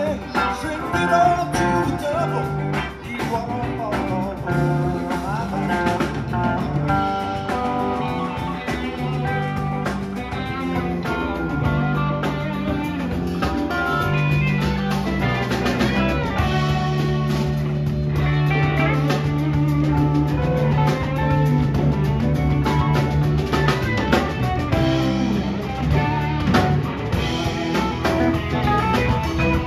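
Live rock band playing an instrumental stretch: electric guitars, electric bass and drum kit, with a harmonica played into the vocal microphone.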